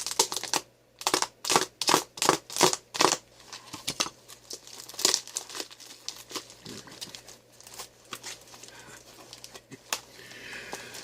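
Packing tape and wrapping being pulled and torn off a parcel: a quick run of loud ripping and crinkling strokes in the first three seconds, then softer scattered rustling.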